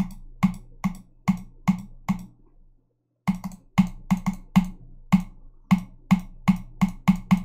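The left button of a working computer mouse clicking sharply, about two to three clicks a second, with a pause of about a second midway. These are the even, crisp clicks of a healthy mouse button, each press registering.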